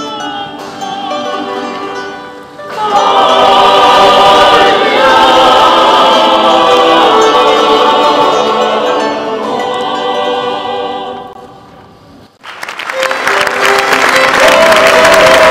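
Several opera voices singing together with a small period ensemble of violins and harp. The music grows loud about three seconds in and dies away after about eleven seconds. About a second later audience applause breaks out and is still loud at the end.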